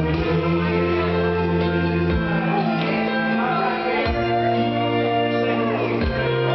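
Live country band music: a steady bass line changing notes about every two seconds under the rest of the band.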